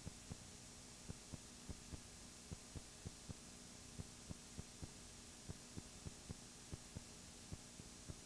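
Near silence: steady electrical hum and hiss with faint, irregular clicking, about three clicks a second.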